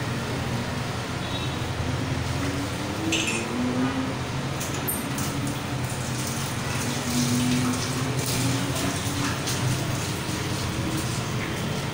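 Steady low hum and hiss under water running from a tap while cups and steel dishes are washed, with a few short clinks of the dishes.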